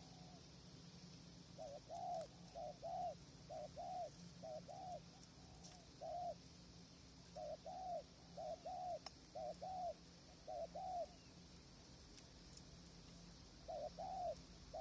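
Spotted dove cooing: a run of short, soft coos, mostly in pairs, that pauses after about eleven seconds and starts again near the end.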